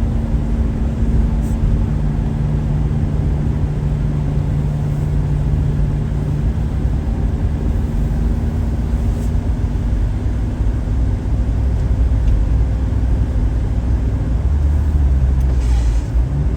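Motor vehicle engine running steadily at low revs, its note dropping lower about three-quarters of the way through.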